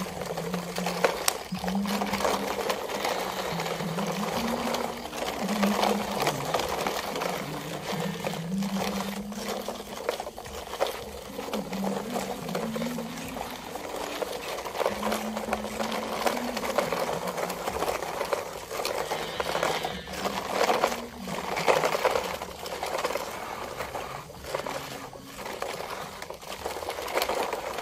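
Plastic toy dump trucks being pushed over dirt, their plastic wheels and bodies rattling and scraping with many small clicks, over background music with a low stepping melody.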